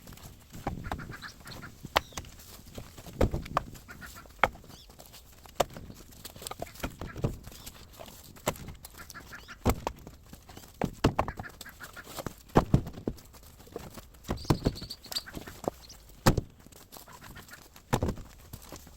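Chickens clucking, with sharp scattered knocks and clacks throughout.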